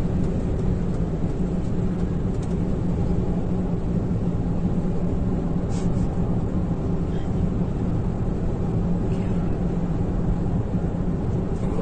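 Steady engine and road noise heard inside the cabin of a moving vehicle, with a constant low hum.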